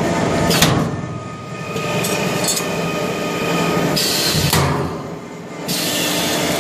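Pneumatic corner fixing machine for HVAC duct work: two sharp metallic clanks, about half a second in and about four and a half seconds in, and a burst of air hiss from about four seconds that cuts off near six seconds, over a steady workshop hum.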